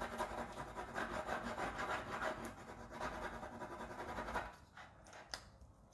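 Fingers rubbing a rub-on transfer sheet onto the side of a painted hat box: a steady scratchy rubbing that dies down about four and a half seconds in, followed by a few light ticks.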